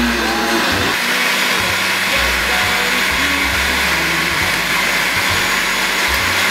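Countertop blender with a glass jar running steadily, puréeing a thick squash and apple soup.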